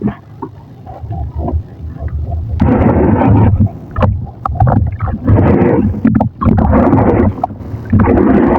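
Thick wet mud paste being worked close to the microphone, with soft wet clicks at first, then loud, dense squelching from about two and a half seconds in, broken by short pauses.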